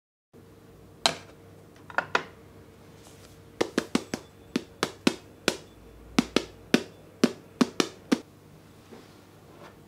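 Salt being shaken out of its container into a small glass bowl on a kitchen scale, heard as a run of sharp, irregular ticks, about twenty over seven seconds, over a faint steady hum.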